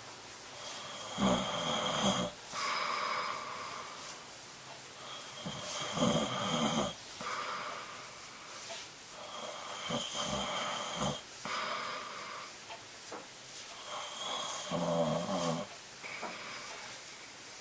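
A sleeping man snoring, four rough snores about four seconds apart with softer breaths between them.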